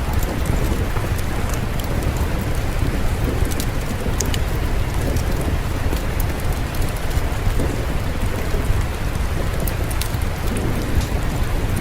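Steady rain falling, over a continuous low rumble, with scattered sharp crackles and ticks: a rain-and-fireplace ambience.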